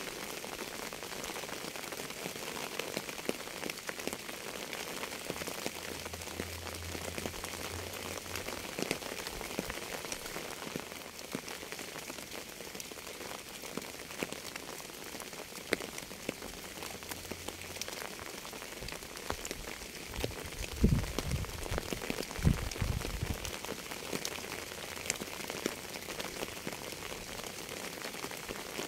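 Steady rain falling, with many sharp drop ticks on a hard surface over an even hiss. About two-thirds of the way through come two short low rumbles.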